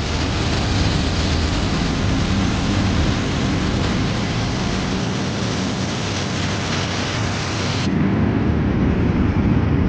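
Steady hiss of a compressed-air paint spray gun applying coats of paint to a car body, with a low rumble underneath. The top of the hiss drops away suddenly about eight seconds in.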